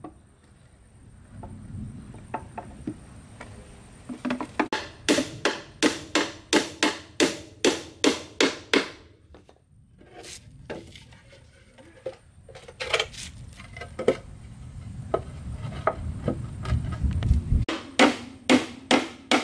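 Repeated sharp strikes of a hand tool on wood, in runs of quick blows about two to three a second, with pauses and scattered single knocks between the runs.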